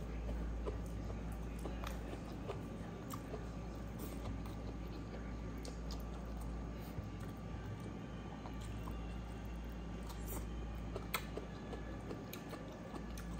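Soft squishes and small clicks of a bare hand mixing rice with pieces of pork intestine on a wooden plate, one sharper click about eleven seconds in, over a steady low hum.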